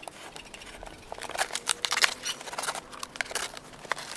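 Utility knife slitting the packing tape along a cardboard shipping box: a run of quick, irregular scraping cuts and crackles of tape and cardboard. Near the end the box flaps are pulled open.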